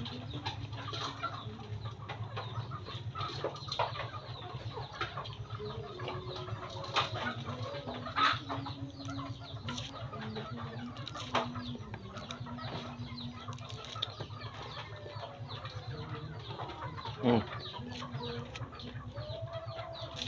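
Chickens clucking, with short calls and one louder, falling squawk near the end, over the chewing and lip-smacking of someone eating by hand and a steady low hum.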